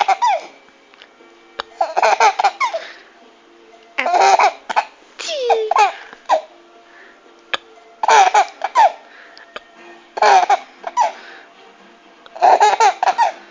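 A baby laughing in repeated fits, about seven bursts roughly two seconds apart, each a string of high, gliding laughs.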